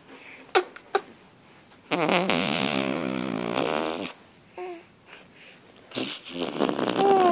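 Infant blowing a raspberry: a wet, buzzing lip trill lasting about two seconds, followed near the end by a short coo.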